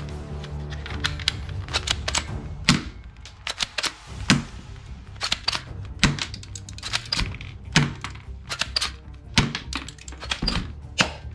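Rapid plastic clicks and clacks from a black plastic toy submachine gun being handled and worked, with a louder clack about every second and a half. Background music plays underneath, clearest near the start.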